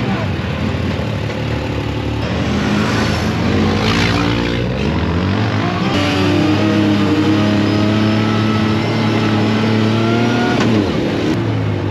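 Off-road side-by-side buggy engine running hard. The revs rise and fall over the first few seconds, then hold steady for about four seconds before dropping near the end.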